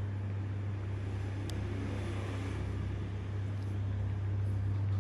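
Steady low hum under a faint background hiss, with one brief click about one and a half seconds in.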